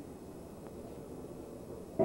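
Faint, steady low background hum of outdoor ambience, with no distinct event.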